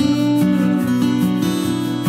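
Background music played on acoustic guitar, with held chords changing at an even pace.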